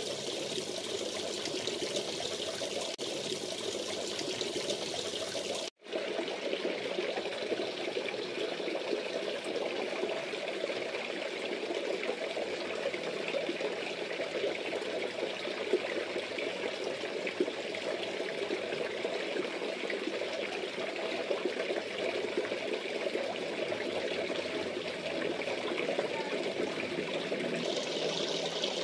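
Water pouring and splashing steadily into a fish pond: a continuous trickling rush. It breaks off for a split second about six seconds in.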